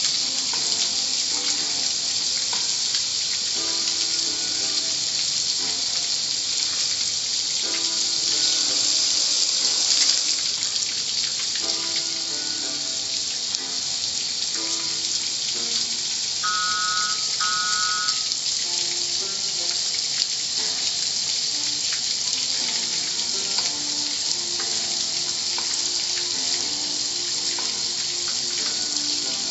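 Car wash water spray hissing steadily, swelling slightly about a third of the way in.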